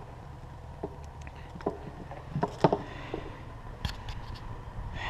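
Handling of a heavy extension cord and its plug: a few separate clicks and knocks, the loudest about two and a half seconds in, over a low steady rumble.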